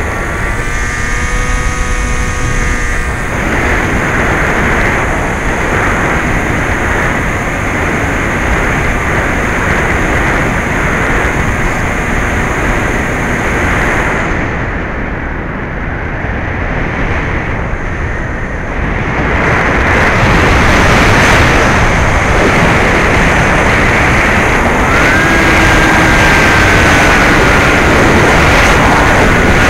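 Rushing airflow over an onboard camera on a Bixler 2 RC foam plane in flight, together with the whine of its brushless electric motor and propeller. A steady whine sounds in the first few seconds; about 25 s in, a new tone rises briefly and then holds as the sound grows louder.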